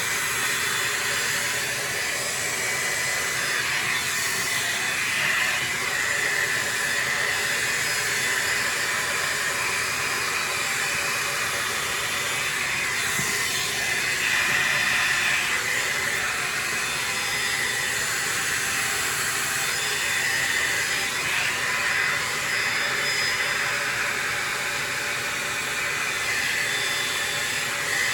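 Farery hot-air blow dryer brush running continuously, a steady rush of air with a motor whine near the middle of the pitch range.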